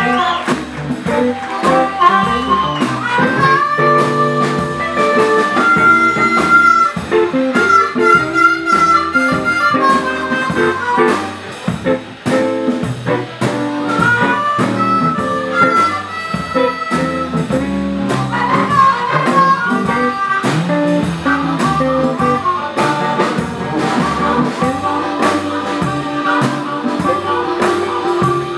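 Blues harmonica played cupped to a microphone, carrying long held and slightly bent notes over a live band of drums, upright bass and a washboard-guitar ("wash-tar") keeping a steady beat.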